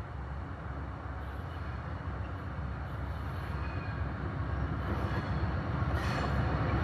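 An Amtrak Coast Starlight passenger train approaching, led by a GE Genesis diesel locomotive. A low rumble grows steadily louder, and a brighter hiss of wheels on rail builds in the last second.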